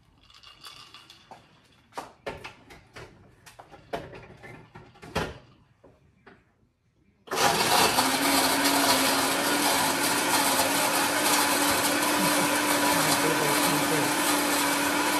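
A few light clicks and knocks, then about seven seconds in an electric blender switches on suddenly and runs steadily with a constant motor hum, blending a moringa drink with ice.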